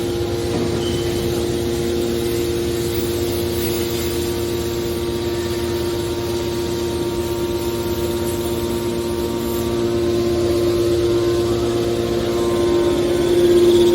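Stainless steel baler machine's motor and hydraulic pump running with a steady hum and whine, growing louder toward the end.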